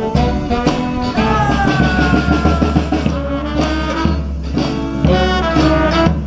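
Live band playing an upbeat swing-style tune, with a long held melody note about a second in that slides slightly down in pitch over a steady bass line.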